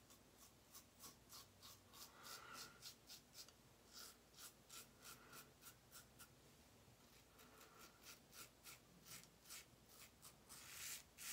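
Blackland Sabre single-edge safety razor scraping through stubble under shaving lather in short strokes, about three a second, with a pause in the middle. A short rush of noise near the end.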